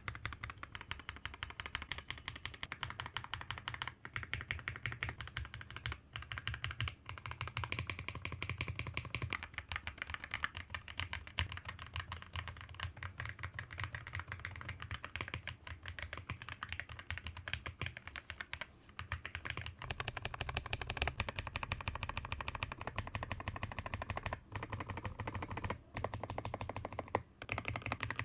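Mechanical keyboard being typed on quickly, a steady stream of key clacks with a few short pauses.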